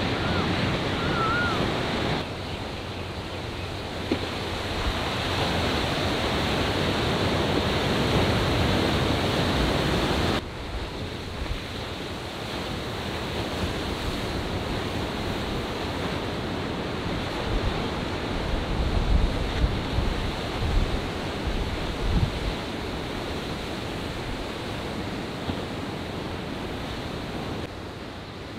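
Ocean surf: waves breaking and washing in a steady rushing noise, with wind buffeting the microphone now and then. The level drops suddenly about 2 and 10 seconds in.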